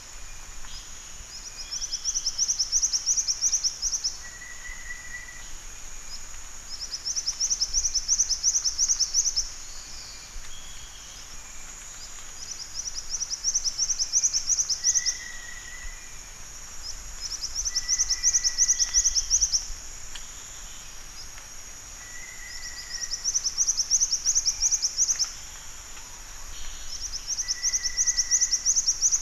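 Black-winged flycatcher-shrike singing: high, rapid trills about two seconds long, six times, each a few seconds apart, with short lower whistled notes between them.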